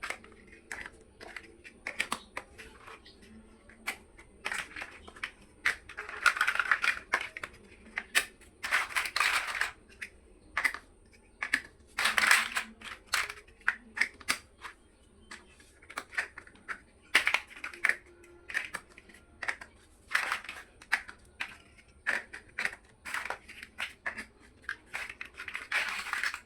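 Plastic building blocks being handled and fitted together: many sharp, irregular clicks, with several longer rustling, scraping stretches as loose pieces are rummaged and pushed into place.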